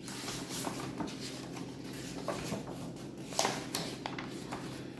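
Pages of a hardcover picture book being turned by hand: paper rustling, with a handful of short flaps and light knocks as the stiff front pages are flipped.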